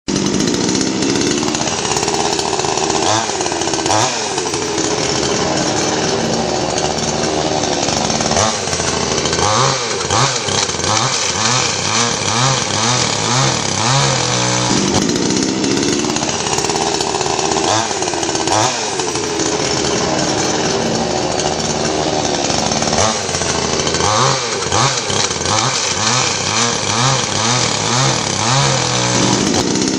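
Stihl two-stroke petrol saw engine running loudly and being revved up and down over and over.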